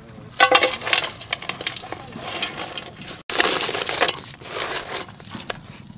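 A basketful of crabs tipped into a large aluminium pot: their hard shells clatter and clink against the metal and against each other, in a dense rattle that thins to scattered clicks near the end.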